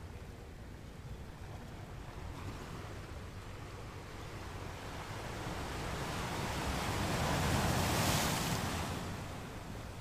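Steady hiss of falling rain, with a rush of wind that swells over a few seconds to a peak about eight seconds in, then dies away.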